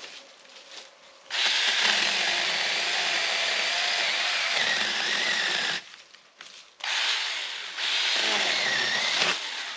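Powered chain saw running in two stretches of a few seconds each, its pitch wavering, each stretch starting and stopping abruptly.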